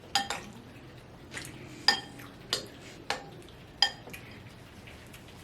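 A metal spoon clinking against a bowl while eating, about six sharp clinks, each ringing briefly.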